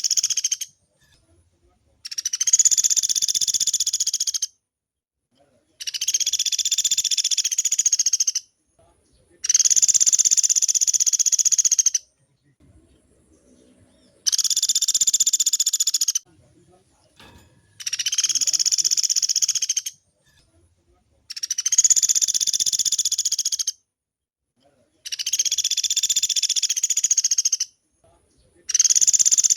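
Pelatuk beras woodpecker giving long, very fast rattling trills, each about two seconds long, repeated steadily with gaps of about a second between them.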